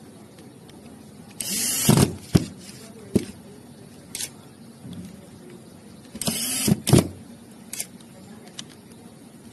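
Power screwdriver driving screws into a gel blaster pistol gearbox: two short runs of about half a second each, each ending in a sharp click, with a few small clicks of parts being handled between them.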